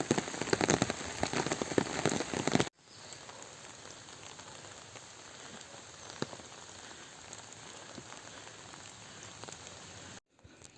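Monsoon rain falling in a pine forest. For the first few seconds, dense, loud drops strike close by. It then cuts abruptly to a quieter, steady rain hiss with an occasional single heavier drop.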